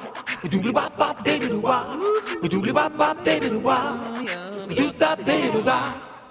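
TV show's bumper jingle: sung vocals over a beat, fading out near the end.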